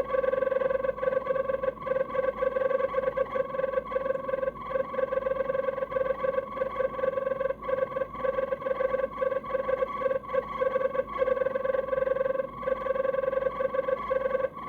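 Faulty refrigerator-compartment fan motor of an LG DIOS Objet Collection refrigerator (M872GBB252) making a steady, mid-pitched whine that wavers and flutters, with brief irregular dips: the noise of a failed fan motor.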